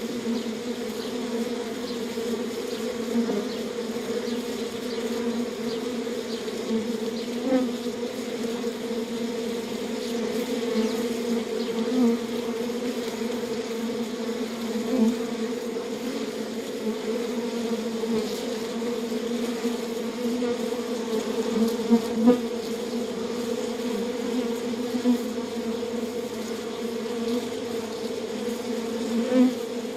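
Bees buzzing: a steady drone with brief louder swells now and then.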